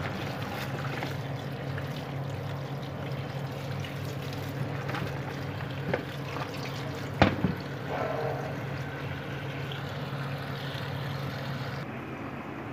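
Tap water running steadily onto okra pods in a plastic tub while a hand rubs and stirs them. There is a sharp knock about seven seconds in, and the running water stops near the end.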